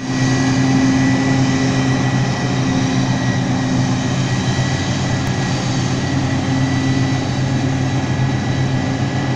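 Self-propelled forage harvester chopping maize: its large engine runs steadily under full load, a continuous heavy drone with a steady high whine over it, with the tractor pulling the silage wagon running alongside.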